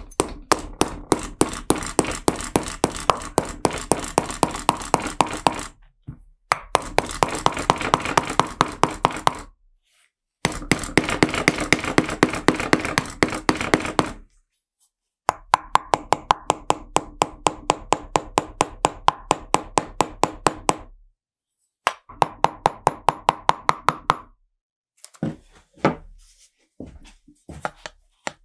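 Rapid, even hammer taps on the thin sheet metal of an old car horn, about four or five a second, with a slight metallic ring: dents being beaten out of the horn. The taps come in several runs separated by short silences.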